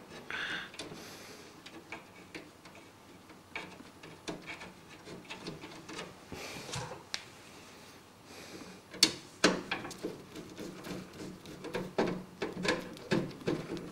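Handling noises of PC hardware being fitted into a computer case: irregular small clicks, knocks and rubbing of parts and cables, with a cluster of louder knocks in the second half.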